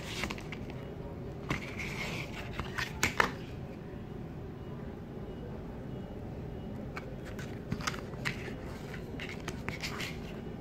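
Packaging being handled during an unboxing: scattered clicks, taps and a brief scrape, with a cluster of sharper clicks about three seconds in and more near the end, over a steady low hum.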